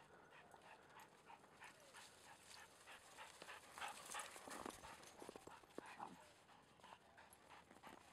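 Faint crunching of footsteps in snow as dogs run about, with soft dog sounds, louder around the middle.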